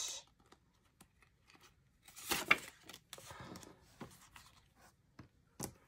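Clear plastic sleeve rustling and crinkling as a paper savings-challenge card is slid out of it and laid on a ring binder, with one louder rustle about two seconds in and a short tap near the end.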